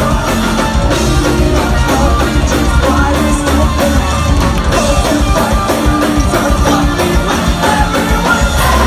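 Loud live rock band performance: a singer singing into a microphone over electric guitars, bass and drums.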